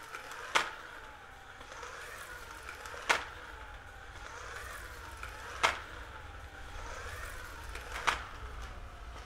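Eerie electrical sound design: a steady low hum under a wavering tone that slowly rises and falls, with a sharp click about every two and a half seconds, four in all.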